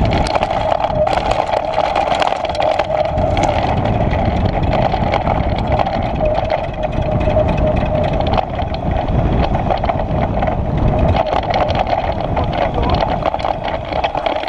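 Mountain bike rolling fast down a gravel track, heard from a camera mounted on the bike: a steady mid-pitched hum with a constant rattle of small clicks and knocks over the loose stones, and low wind rumble.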